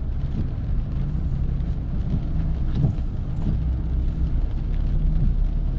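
Car driving slowly on a wet road, heard from inside the cabin: a steady low hum of engine and tyres.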